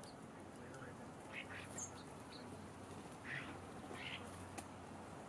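Birds calling faintly: a few short, harsh calls in quick succession, with high chirps among them, and a sharp click near the end.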